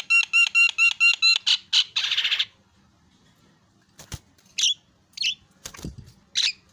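Javan myna (jalak kebo) singing: a fast run of about ten repeated whistled notes, then a harsh rasping note. After a short pause come a few sharp clicks and short harsh calls.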